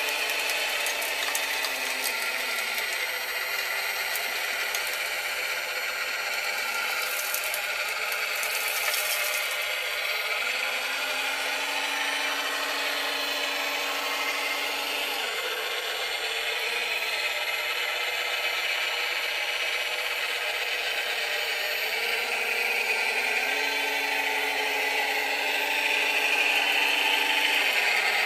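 Radio-controlled scale model Cat 966 wheel loader working, a steady mechanical whine from its small electric motors and gearing. A lower tone cuts in and out a few times as it drives and works its bucket.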